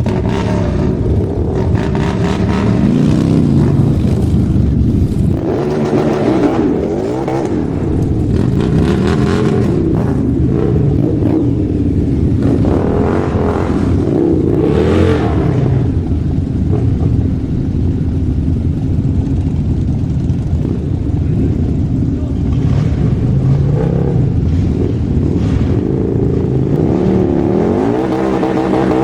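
Motorcycle engine running and being revved up and let back down several times, its pitch rising and falling with each rev.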